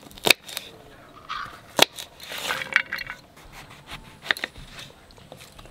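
Kitchen knife cutting yardlong beans and then a green brinjal on a wooden chopping board: three sharp knocks of the blade hitting the board, with softer slicing and scraping sounds between.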